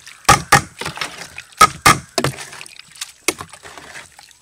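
Metal spoon stirring curd raita with chopped vegetables in a metal pot: a series of irregular sharp clinks and knocks of the spoon against the pot, with wet mixing sounds between.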